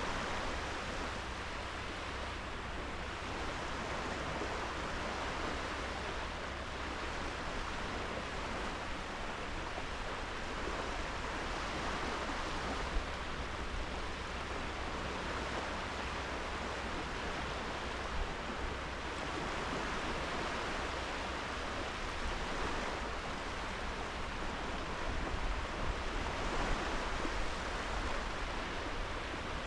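Small sea waves breaking and washing onto a sand beach: a steady hiss of surf that swells and eases every few seconds.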